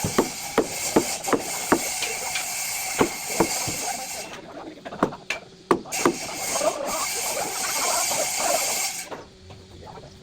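Hand work on building materials: a run of sharp knocks, two to three a second, over a steady scraping hiss, then a few scattered knocks with the scraping carrying on.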